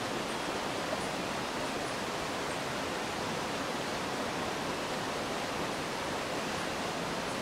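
Mountain stream rushing: a steady, even rush of water.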